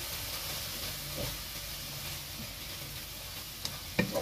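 Julienned carrots and vegetables sizzling in olive oil in a frying pan, a steady hiss. About four seconds in, a wooden spatula knocks twice against the pan as stirring begins.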